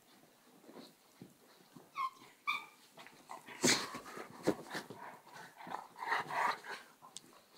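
A border collie and a Czechoslovakian wolfdog wrestling: two short, high yelps about two seconds in, then a run of scuffling and rough mouthing noises, loudest a little before the four-second mark.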